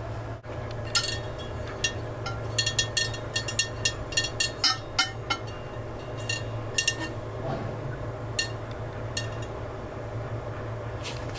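Light clinks and taps of skewered fish being set down on the metal wire rack inside a German Pool halogen oven's glass bowl, each ringing briefly. They come in a quick irregular run for several seconds, with a few more later, over a steady low hum.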